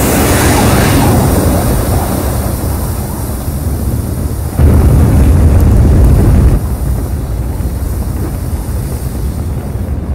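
Sound effect of the Mars 2020 descent stage's rocket engines firing during powered descent: a steady, dense, low rumble. It jumps louder about four and a half seconds in and drops back two seconds later.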